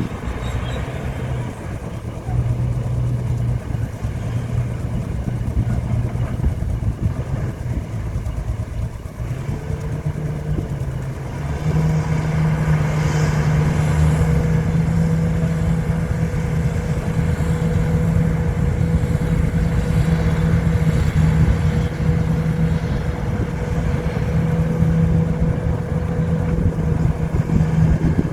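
Heavy diesel engine of earthmoving equipment running steadily. About ten seconds in it speeds up and grows louder, then holds at the higher speed.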